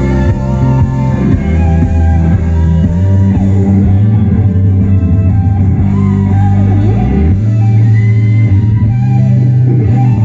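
Recorded guitar-led country-rock music with bass and drums played loud through JBL SRX835P three-way speakers and SRX828SP subwoofers, with a heavy, steady low end.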